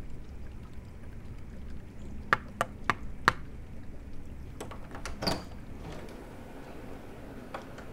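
Four quick knocks on an apartment door, then a few clicks of the lock and latch as the door is opened about five seconds in.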